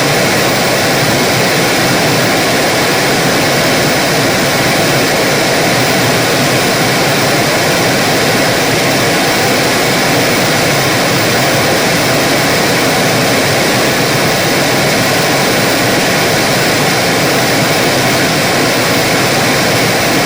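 Television static: a loud, steady, even hiss of white noise with no change or breaks.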